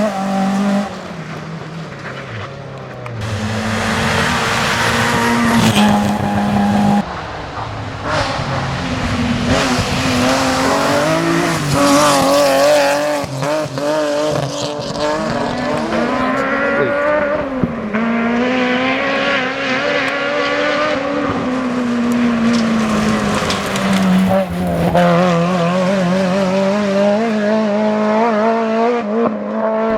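Rally car engines at hard throttle, the engine note climbing and dropping again and again through gear changes and lifts, with tyres squealing on tarmac.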